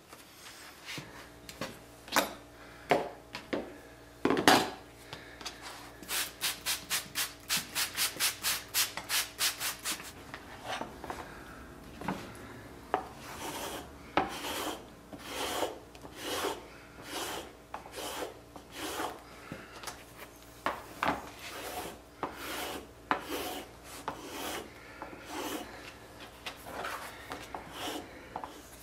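Glass slicker rubbed back and forth over a leather holster panel, a rasping stroke with each pass. In the middle there is a fast run of about four strokes a second, followed by slower, uneven strokes. A single knock about four seconds in is the loudest sound.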